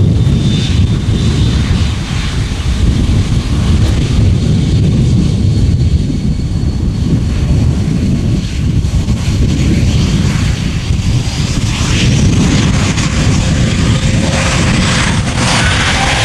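Airbus A321neo's Pratt & Whitney geared turbofan engines running with a low rumble as the jet lines up on the runway. Over the last few seconds a thin whine rises in pitch as the engines spool up for the takeoff roll.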